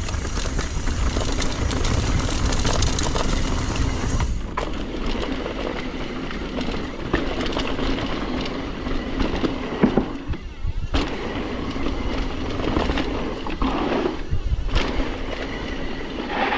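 Mountain bike descending a dirt jump trail at speed: tyres on dirt, chain and drivetrain rattling, and wind buffeting the microphone. There is a sharp knock about ten seconds in, and brief lulls around four and a half and eleven seconds in.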